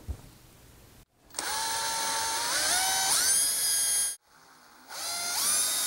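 Cordless drill with a small twist bit boring screw holes through a plastic bucket-topper lid. There are two runs, the first starting about a second in and the second near the end, and each time the motor whine rises in pitch as the drill speeds up.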